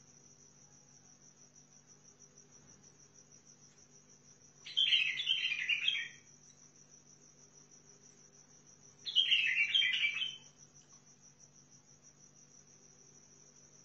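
White-eared bulbul singing two short warbled phrases, each a little over a second long and about four seconds apart, over a steady high trill.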